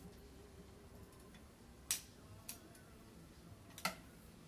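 Metal tongs clicking against a frying pan while eggplant pieces are turned: three short sharp clicks, the loudest about two seconds in.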